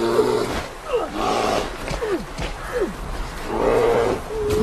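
A man scuffling with a brown bear: growls and roars, with short falling cries between them and a held cry rising in pitch near the end.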